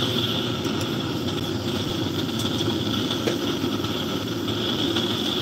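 A steady mechanical drone like an engine running, with a few light clicks as small metal parts of a car alternator are handled.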